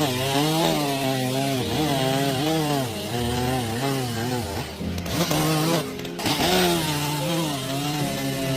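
Chainsaw cutting into wood, the engine pitch repeatedly dipping and climbing back as it bogs under load and revs up again.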